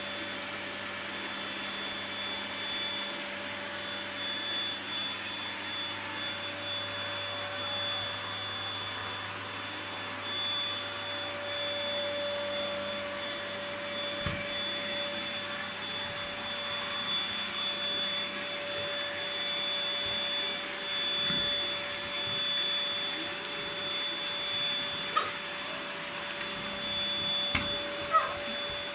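Vacuum cleaner running steadily: an even rushing noise with a constant whine held at several pitches, and a few faint clicks near the end.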